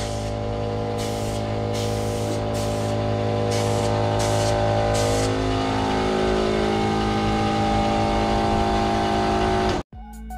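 Paint spray gun hissing in about six short blasts during the first five seconds, over a steady motor hum. Everything cuts off abruptly near the end.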